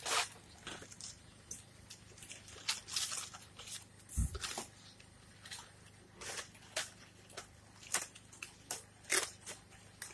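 Dry palm fronds crackling in an open cooking fire: irregular sharp cracks and snaps, about a dozen scattered through, with one low thump about four seconds in.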